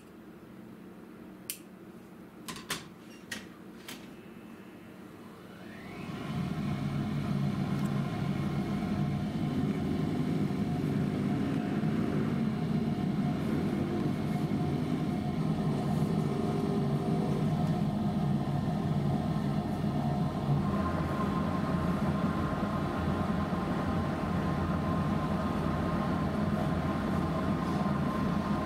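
A few sharp scissor snips, then about six seconds in an electric motor starts, winding up in pitch and settling into a steady mechanical hum. A thin steady whine joins in about two-thirds of the way through.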